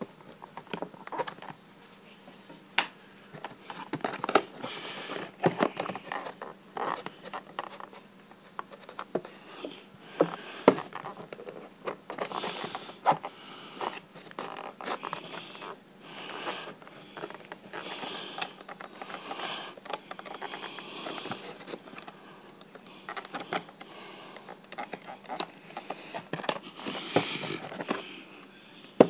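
Toy packaging being handled and picked at while someone tries to open it: irregular crinkles, clicks and scratchy rustles of plastic and cardboard.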